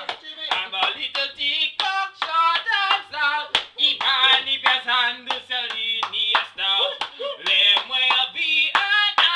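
Two male voices singing a chant-like song, keeping time with their own hand claps.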